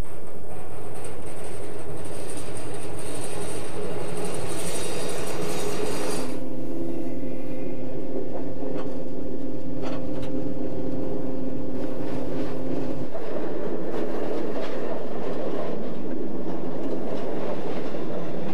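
Electric passenger trains running on the line, wheels rumbling and clacking over the rails. A steady humming tone comes in about six seconds in and stops about seven seconds later.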